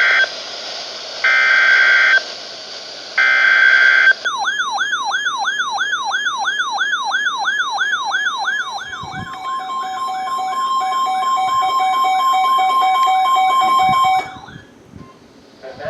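Emergency Alert System alert tones. First come the last two of three short buzzy bursts of SAME header data. About four seconds in, a siren-like tone starts, sweeping up and down between two and three times a second. Around nine seconds in, the steady two-tone EAS attention signal joins it, and all the tones cut off abruptly about fourteen seconds in.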